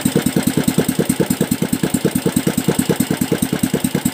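Stroked-up small single-cylinder OHV petrol engine running at a steady idle, an even firing beat of about nine pulses a second.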